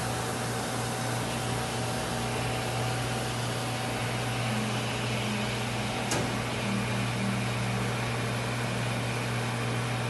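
Rayman Brasil RB800 commercial tray and utensil washer running its wash cycle: a steady pump hum, with water spraying inside the closed cabinet from the rotating wash arms. One sharp click about six seconds in.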